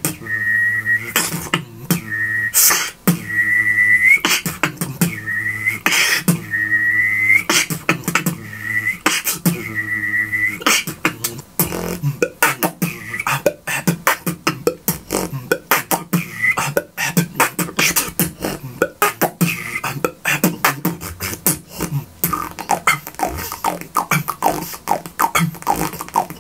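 Beatboxing with an airplane-engine imitation: a high mouth whistle sounded together with a low hummed note, in short repeated phrases that each end with an upward slide, set between beatbox kick and snare sounds. About halfway through the whistle drops out and the beatbox pattern carries on alone, busier and faster.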